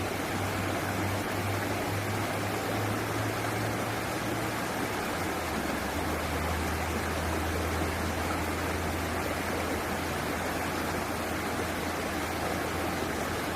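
Rushing water of a stream or small waterfall: a steady, even wash of noise with a low rumble underneath that drops slightly in pitch about five seconds in.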